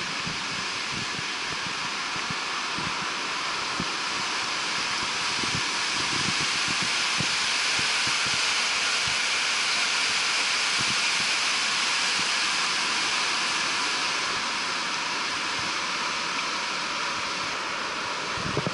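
Whitewater river rushing over boulders in a steady roar that swells in the middle and eases off again near the end, with irregular low thumps underneath.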